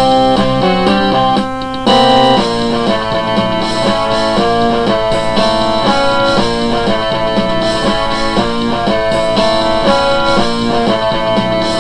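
Self-made funk-style instrumental music with plucked guitar lines, recorded through a cheap microphone. It briefly drops in level about a second and a half in, then comes back in a new section just before two seconds.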